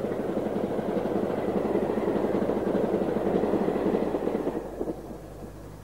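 Class 52 'Western' diesel-hydraulic locomotive running past, its engine sound with a fast pulsing beat. The sound dies away about five seconds in.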